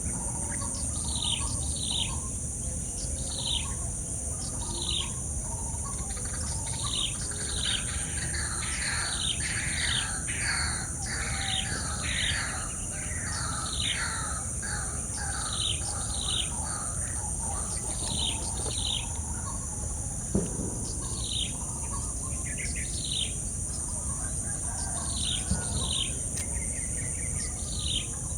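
Wild birds calling: short notes falling in pitch, repeated roughly once a second. A second bird's quicker run of lower falling notes joins for several seconds in the middle. A steady high insect drone runs underneath.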